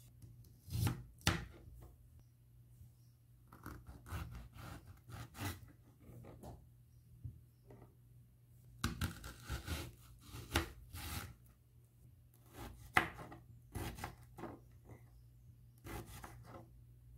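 Serrated kitchen knife slicing cucumber and tomato on a plastic cutting board, in irregular runs of sharp cuts with short pauses between them.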